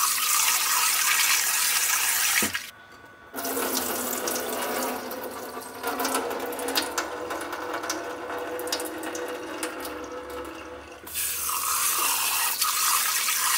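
Kitchen tap running into a rice cooker pot of raw rice being rinsed, and shutting off briefly about two and a half seconds in. Hands then swish the rice and pour the cloudy rinse water off into a stainless steel sink, with light ticking, before the tap runs into the pot again near the end.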